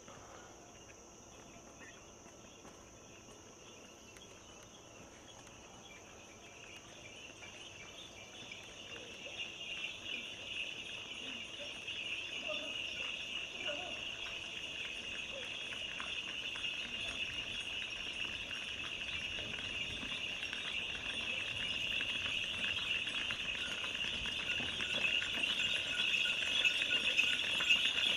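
Many small bells on a herd of Gir cattle jingling as the animals walk, growing steadily louder as the herd comes closer. Insects make a steady high drone underneath.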